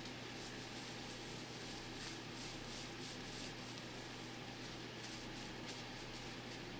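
Faint room noise with a steady low hum and soft, irregular rustles, cutting off suddenly at the end.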